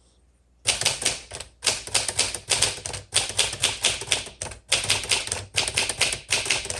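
1957 Smith Corona Silent Super manual typewriter being typed on: a fast, steady run of key strikes starting about half a second in, broken by a few short pauses.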